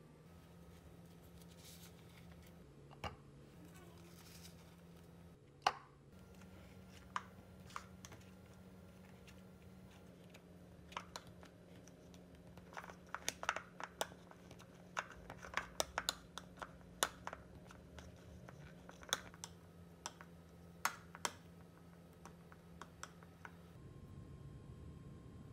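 Scattered sharp clicks and taps from a metal spoon knocking and scraping against a thin plastic dessert cup as chocolate cake pieces are pressed into it. The clicks come thickest through the middle and second half, over a faint steady hum.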